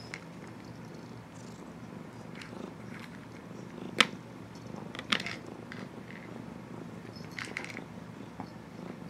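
Domestic cat purring steadily while it works at a plastic treat-dispensing mouse toy, with a few sharp plastic clicks and knocks as the toy is nosed and pawed, the loudest about four seconds in and more just after five and around seven and a half seconds.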